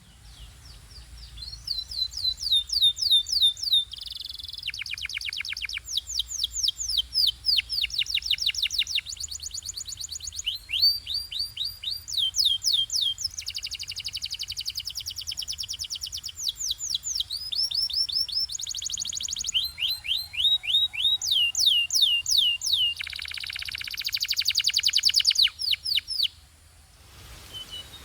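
Canary singing a long, continuous song of rapid trills, each phrase a quick run of one repeated note or falling whistle before switching to the next, stopping near the end.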